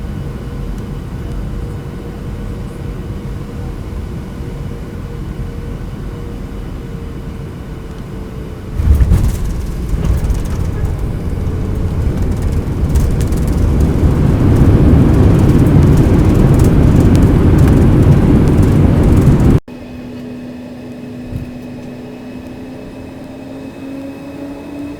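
Airliner engines heard from inside the cabin. A steady rumble gives way about a third of the way in to a sudden surge that keeps growing louder, as on the takeoff roll. It cuts off abruptly about two-thirds of the way through, leaving a quieter cabin hum with a slowly rising whine.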